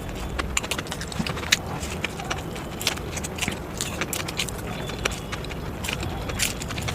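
Close-miked eating: irregular wet clicks and smacks of chewing, with a steady low rumble underneath.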